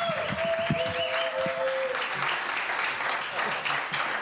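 Audience applauding. Over the clapping, a few held tones ring out and stop about two seconds in.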